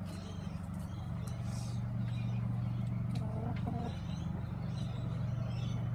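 A steady low mechanical hum, like a motor running.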